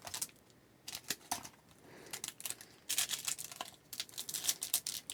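Foil trading-card pack wrapper crinkling and crackling in the hands as it is worked open, with light clicks of cards being handled; the sounds are sparse at first and come thick and fast in the second half.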